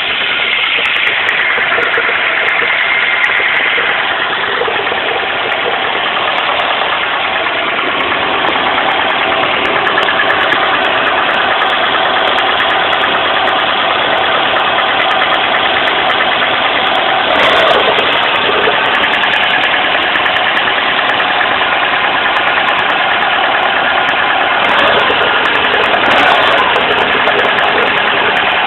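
Car engine idling steadily with an extraneous murmuring noise from the clutch area, a sign of a clutch-area fault. It gets briefly louder twice in the second half.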